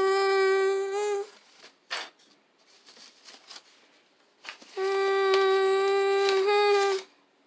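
A person's voice holding a long, steady hummed note twice: once for about a second, then again for about two seconds, the second note jumping slightly higher in pitch near its end.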